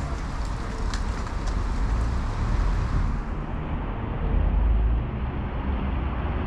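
Street traffic on a wet city street: a steady rumble of passing vehicles.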